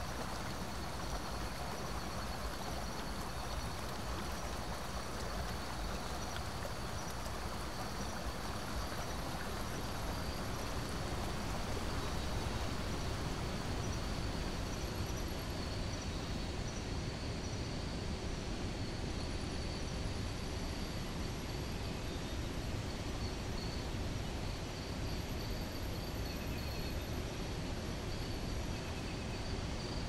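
Steady rush of running water from a rainforest river or waterfall, with thin high-pitched insect calls held steadily above it.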